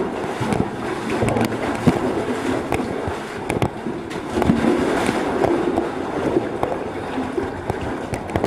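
Irregular rustling and scraping with scattered knocks from a caver moving through a cave passage, with handling noise from the handheld camera.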